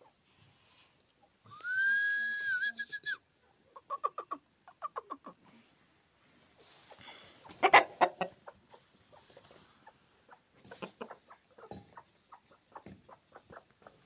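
Chickens clucking in runs of short clucks, with a held whistle-like call about two seconds in and a louder, harsh burst near the middle.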